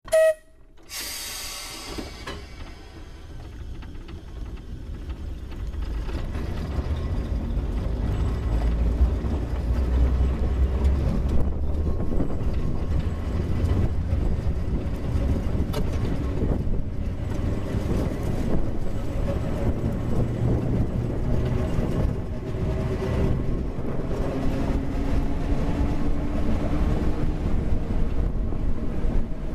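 Manx Electric Railway tramcar 32, dating from 1906, running along the line: a low rumble of steel wheels on the rails and the car's running noise, growing louder over the first several seconds as it gathers speed, then steady. A faint whine rises in pitch near the end; a short tone sounds right at the start and a brief hiss about a second in.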